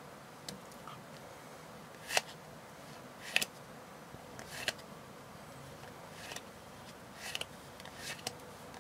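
Stiff game cards handled one at a time, slid off one stack onto another, giving about ten faint, short card snaps at irregular intervals.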